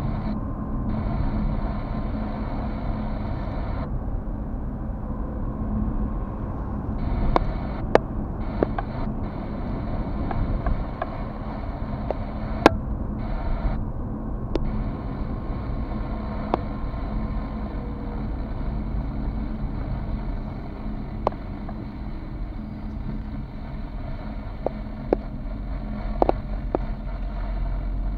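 Car driving, heard from inside the cabin: a steady low rumble of engine and tyres, with a faint steady hum and scattered sharp clicks and ticks.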